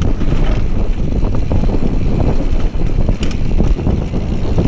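Mountain bike riding fast down a dirt singletrack: wind buffeting the microphone over the rumble of the tyres on the trail, with scattered clicks and rattles from the bike over bumps.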